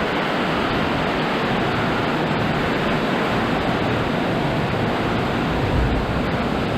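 Summer storm: strong wind and rain making a steady, dense rush of noise.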